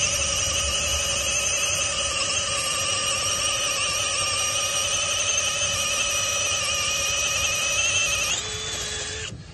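APR AP17 cordless drill motor running at a steady high speed with a constant whine. Near the end its pitch drops, and it winds down to a stop.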